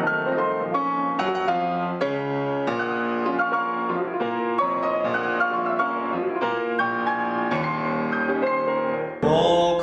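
A Fazioli F212 concert grand piano being played: a flowing passage of notes and chords in quick succession. It cuts off suddenly near the end.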